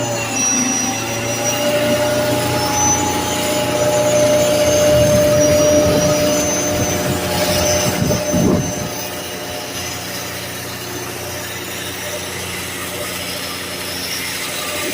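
Heavy truck engine and machinery running steadily in street traffic, with a steady whine; it swells for a few seconds and then eases off about eight seconds in.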